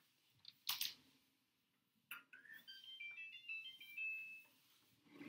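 A microwave oven beeping: a quick run of short electronic tones at changing pitches, after two soft knocks.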